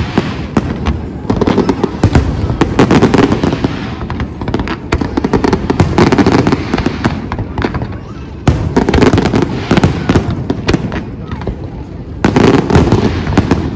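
Aerial fireworks display: dense crackling and bangs from many shells bursting at once, coming in waves.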